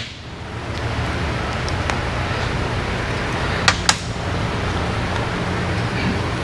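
Steady hum of shop ventilation, with two sharp metal clicks just before the middle as a Harley Twin Cam hydraulic tappet is worked out of its bore in the crankcase.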